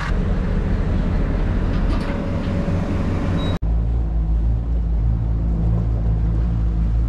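A four-wheel drive's engine running steadily, then an abrupt switch about a third of the way in to a small boat's motor running with a low, steady hum as it moves across calm water.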